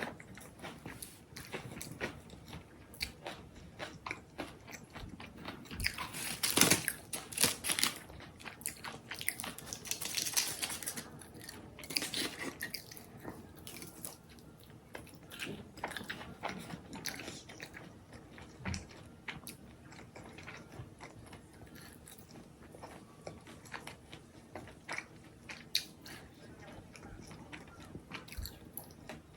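A person biting and chewing food close to the microphone, with crunchy bites and steady chewing; the loudest crunches come in two clusters about a third of the way in.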